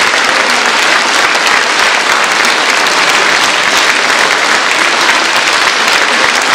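Audience applauding steadily, a dense sound of many hands clapping at the end of a performance.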